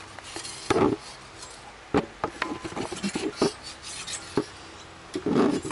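Steel ruler and feeler gauge blades tapping, clinking and scraping on the deck of an RB25DET's aluminium cylinder head while it is checked for warping: a string of separate metallic taps, one ringing briefly about halfway through, and a louder scrape near the end.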